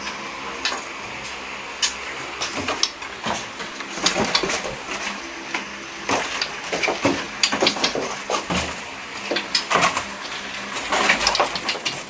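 Irregular clattering and tapping against wooden and bamboo cage bars from caged songbirds moving about, with short sharp knocks at uneven intervals.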